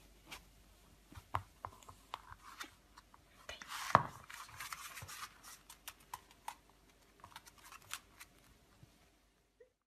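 Pug puppy chewing and tugging a plastic chew toy with a rope tassel: faint scattered clicks and scratches, with one sharp knock about four seconds in.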